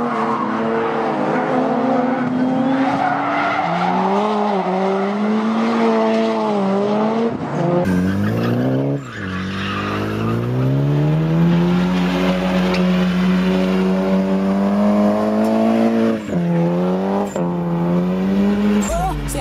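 Mitsubishi Lancer Evolution's turbocharged four-cylinder engine revving hard through drifts, its revs rising and falling over screeching, skidding tyres. About halfway through, after a cut to a second car, the revs climb and are held high, with two brief dips near the end.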